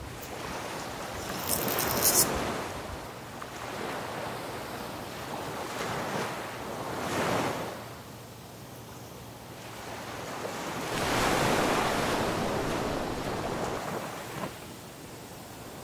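Sea surf washing up the beach, swelling and fading in three slow surges, the longest near the end, with some wind on the microphone. A brief sharp rustle sounds about two seconds in.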